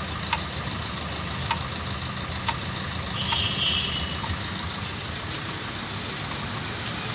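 Maruti Ertiga's engine idling while the brake pedal is pressed and released, with sharp clicks about once a second and a brief high squeak about three seconds in. This is the brake noise under diagnosis, which the mechanic traces to the rear right brake, where the adjuster (setting) rod and springs have been replaced.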